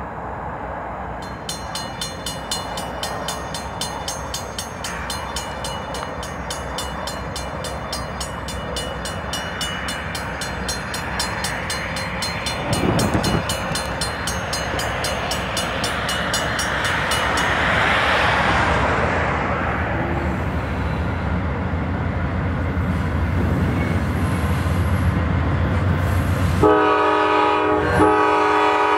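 Diesel-hauled freight train approaching, its engine rumble and wheel noise building steadily. Near the end the locomotive's multi-tone air horn sounds in short blasts.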